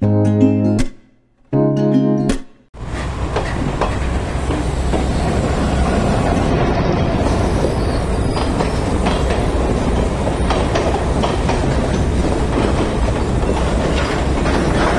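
A short plucked-guitar music sting, then, a few seconds in, a passenger train's coaches rolling past close by: a steady rumble with quick clicks of the wheels over the track.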